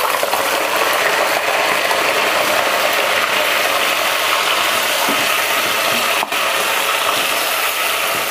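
Raw chicken pieces and ginger-garlic paste frying in hot oil, a steady loud sizzle.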